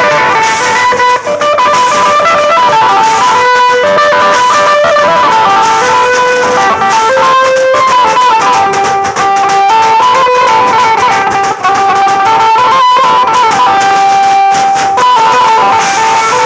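Indian band party (band baja) playing live: a lead melody of stepped, held notes over steady drumming and cymbals.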